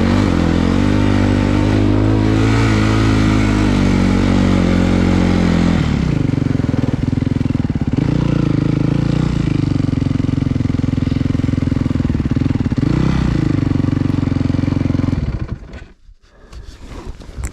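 Engine of a snow vehicle running under load. Its pitch drops about six seconds in, then runs steady with a brief dip and rise in revs, and the sound falls away sharply near the end.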